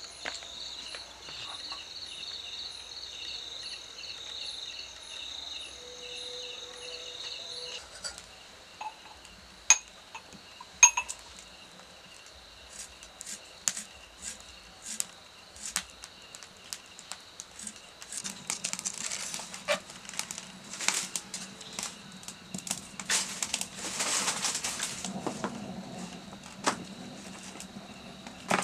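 Crickets chirping steadily for about the first eight seconds. Then scattered clicks, knocks and clatters of metal pots and utensils at a clay cooking stove being lit, joined by a steady low noise from about two-thirds of the way in.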